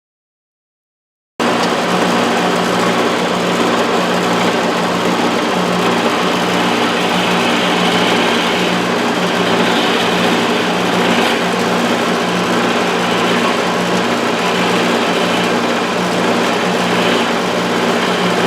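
Wood lathe running steadily, a motor hum under a rough, uneven hiss as a turning tool shapes a wooden finial. The sound comes in abruptly about a second and a half in, after dead silence.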